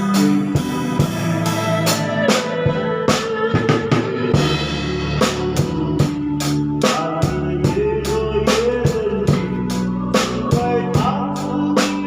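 Live band playing a slow Chinese pop ballad: a drum kit keeping a steady beat with snare and bass drum hits, over sustained electric guitar and bass notes.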